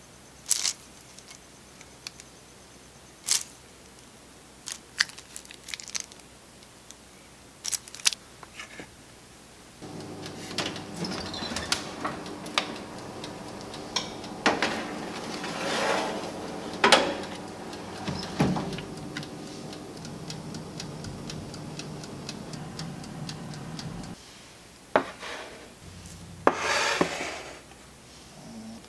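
A few light clicks and taps while cookie dough is piped onto a parchment-lined baking pan. Then a metal baking tray clatters against the wire rack of a running oven over a steady hum. The hum stops about 24 seconds in, followed by a few more clicks.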